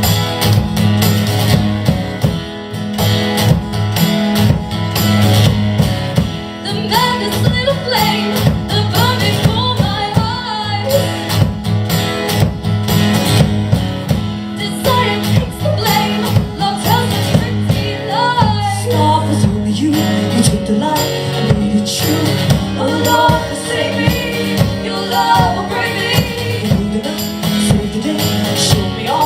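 Live folk song: strummed acoustic guitar with female vocals coming in about six seconds in.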